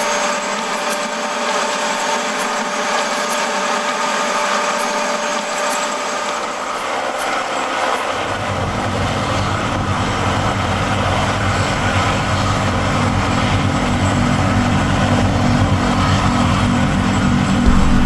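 Helicopters, among them a Robinson R44, running on the ground: a steady engine noise with a thin whine. About eight seconds in, a deep low rumble with a fast flutter sets in and stays loud.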